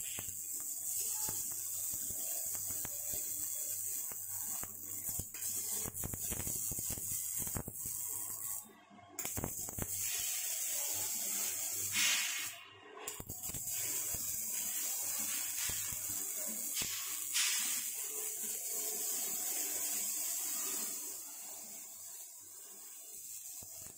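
Electric arc welding on steel wagon frames: a steady hiss with crackle. It drops out briefly twice and is quieter in the last few seconds.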